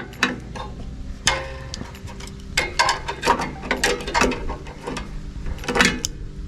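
Hand tools and metal parts clicking and knocking irregularly as a mechanic works at the fuel tank fitting of a small four-stroke tiller engine.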